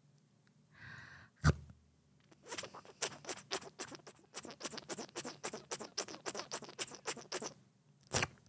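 Crunchy chewing close to the microphone: a run of sharp crackling crunches, about three to four a second, lasting some five seconds. It comes after a single sharp click about a second and a half in, and is followed by one more short burst near the end.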